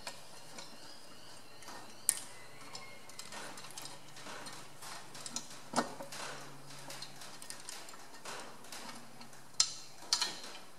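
Light metal clicks and knocks as the Massey Ferguson 135's cooling fan and its screws are handled and the fan is taken off the water pump pulley. Sharper knocks come about two seconds in, near six seconds, and twice near the end.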